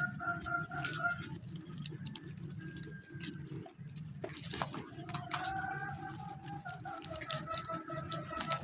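Flock of birds calling, with long drawn-out calls near the start and again from about five seconds in, over constant light tapping and pattering.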